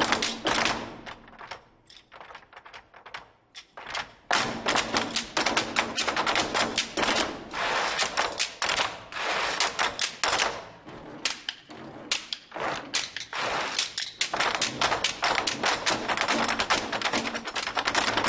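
Ensemble of red Chinese barrel drums struck with sticks in fast, dense strokes. The playing drops to a few soft strokes about a second in, then builds back to a rapid rattle of strokes around four seconds in.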